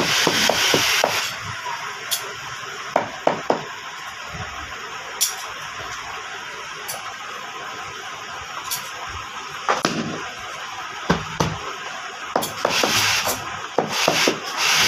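A wooden mallet worked over a leather welding glove to flatten it, giving scuffing, rubbing strokes in two spells: in the first second and again through the last couple of seconds. Between the spells come a few sharp knocks and the handling of leather.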